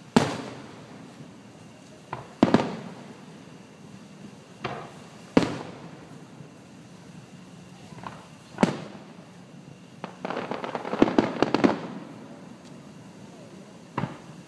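Aerial fireworks shells bursting overhead: a sharp bang every two to three seconds, each trailing off. About two-thirds of the way through comes a fast run of crackling pops.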